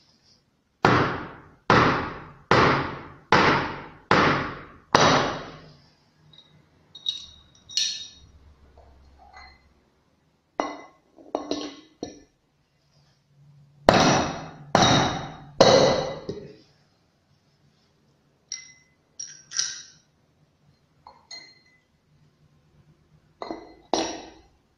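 Sharp metallic knocks on a machined aluminium pulley, each ringing briefly. Five hard knocks come about a second apart, then lighter clinks, then three more hard knocks midway, and a few light taps near the end.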